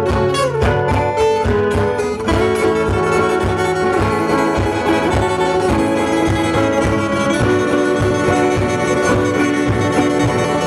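A band playing an instrumental piece, with guitar and bowed strings carrying the tune over a steady beat.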